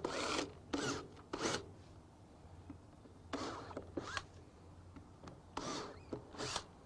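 Cordless drill boring shallow countersink holes into a wooden board: about seven short bursts of the bit cutting into the wood, with pauses between them and a longer pause in the middle.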